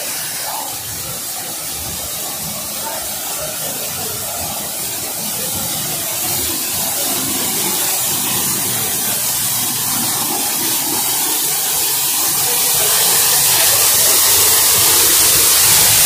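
Waterfall: a steady rush of falling water with a strong hiss, growing louder over the second half.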